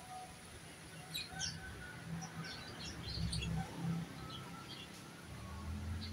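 Small birds chirping in a string of short, high calls, over a low rumble of wind in the trees that swells twice.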